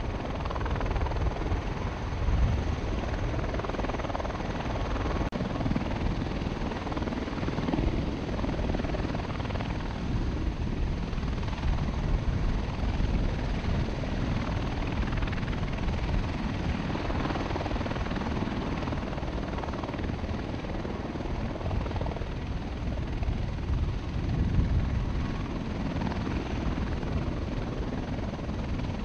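MV-22 Osprey tiltrotors running on the ground with proprotors turning: a steady, dense rotor and turbine noise, heavy in the low end, that swells and eases slightly.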